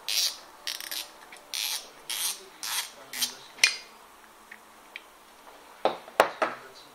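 Short rasping, rubbing strokes of hand handling, about two a second, that stop about three and a half seconds in; a few sharp clicks follow near the end.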